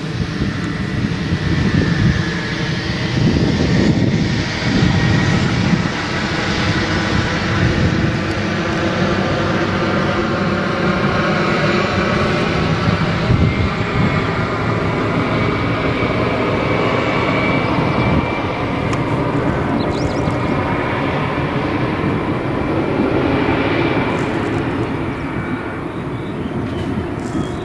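Twin Pratt & Whitney PT6A turboprops of a Beechcraft Super King Air at takeoff power, the propellers buzzing steadily over a high turbine whine, as the plane accelerates down the runway. The sound grows somewhat fainter near the end as the plane draws away.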